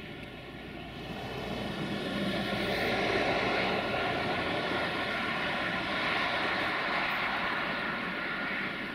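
Sulzer six-cylinder diesel engine of an LDE2100 (060-DA) diesel-electric locomotive working under load as it hauls a freight train toward the listener. The steady engine note grows louder from about a second in, then holds near its peak.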